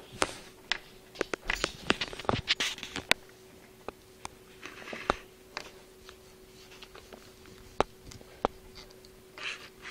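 Plastic spoon stirring a sticky marshmallow mixture in a small bowl, clicking and scraping against the sides: a quick run of clicks in the first three seconds, then scattered single taps.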